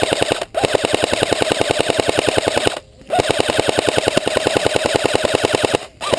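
Airsoft electric rifle firing on full auto, a fast, even rattle of shots from its cycling gearbox, in long bursts broken by three brief pauses.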